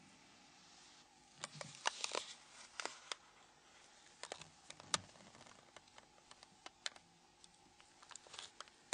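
Faint, irregular small plastic clicks and scrapes, in scattered clusters, as a plastic pry tool works round a Nokia N93 phone's housing and unlocks the snap latches of its capture key cover.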